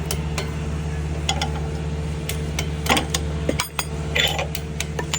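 Sharp clicks and short metallic scrapes of hand tools working at a fouled outboard propeller hub, over a steady low hum of an idling engine.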